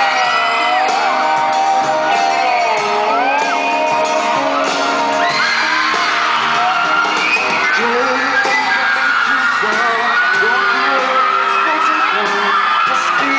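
Live pop music with a man singing into a microphone through a loud sound system, with a crowd of fans screaming and cheering over it.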